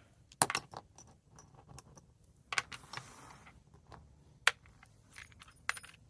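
Metal clicks and clinks of a padlock and small tools being handled on a work surface, a few sharp taps scattered among lighter rattles.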